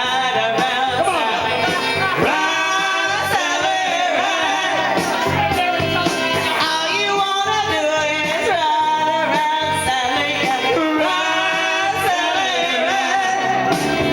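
Singing with instrumental accompaniment and a steady beat, the sung melody bending and wavering throughout.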